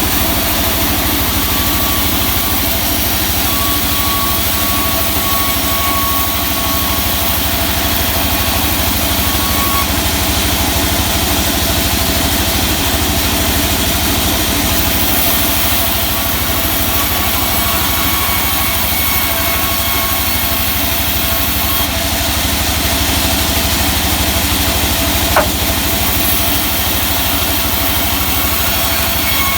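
Sawmill machinery running steadily, an engine-like hum with a faint whine coming and going, and one short click near the end.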